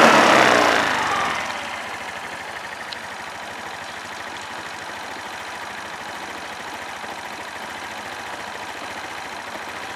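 2010 Suzuki Address V125S scooter's single-cylinder four-stroke engine idling, loud for the first second or so and then settling to a steady, even idle. The seller describes the engine as in good running order.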